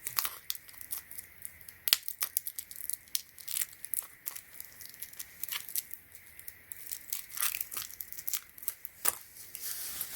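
Packaging being torn open and crinkled by hand: a run of irregular sharp rustles and clicks.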